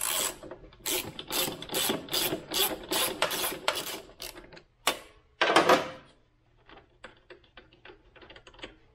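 Ratchet wrench with an 8 mm Allen bit clicking in short strokes, about three a second, as the bolt on the stock muffler hanger is backed out. A brief louder rasp comes about five and a half seconds in, then fainter, quicker clicks.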